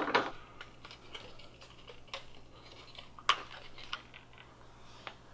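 Scattered small clicks and taps of plastic and brass plumbing fittings being handled, with a sharper click about three seconds in.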